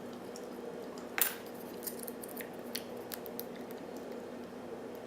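Small metallic clicks and scrapes of lock picks and a tension wrench working in a wafer padlock's keyway, with a sharper click about a second in. A steady low hum sits underneath.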